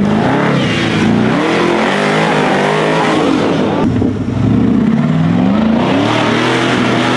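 Off-road buggy's engine revving hard under load as it climbs a steep dirt hill. The revs rise and fall several times, with a short drop about four seconds in before it picks up again.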